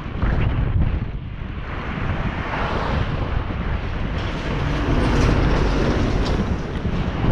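Wind buffeting the microphone of a camera on a moving bicycle, with road traffic passing; the noise swells in the middle as a motor vehicle goes by.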